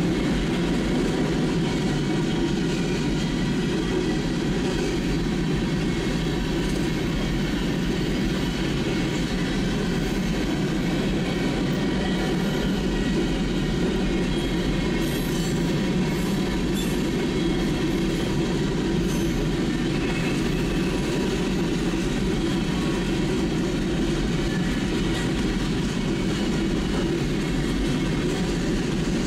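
Freight train's covered hopper cars rolling past steadily, their wheels and trucks rumbling on the rails. There are a few faint high squeals about halfway through.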